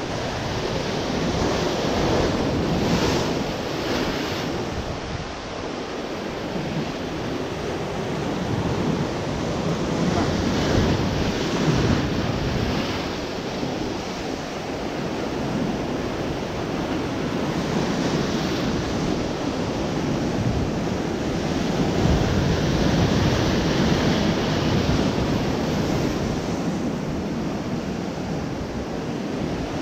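Sea waves breaking and washing against a rocky shore, swelling and easing every few seconds, with wind buffeting the microphone.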